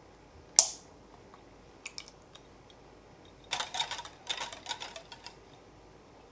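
A wire balloon whisk clinking against the side of a glass bowl, a quick run of clicks for about two seconds, as heavy cream is stirred into a cream cheese filling. A single sharp clink about half a second in is the loudest sound.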